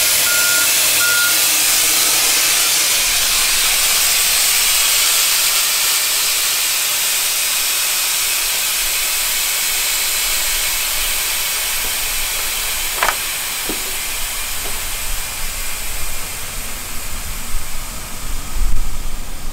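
Compressed air hissing out of a Pierce fire engine's rear air suspension as the air dump lowers the rear end of the truck: a steady hiss that slowly eases off, with a few short beeps at the start.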